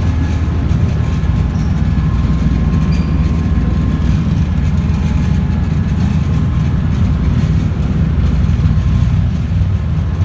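Passenger ferry's engines running with a steady low rumble, mixed with the rush of the propeller wash churning behind the boat.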